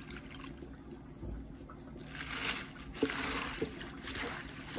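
Spinach leaves being washed by hand in a steel bowl of water. It is fairly quiet at first, then water sloshes and splashes as the leaves are swished about from about two seconds in, with a couple of light knocks.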